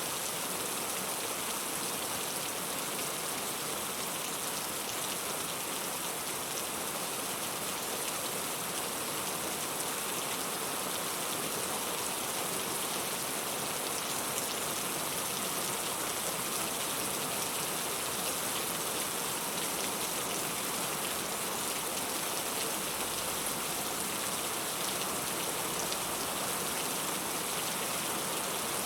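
Steady rain falling, with many fine drops pattering on surfaces.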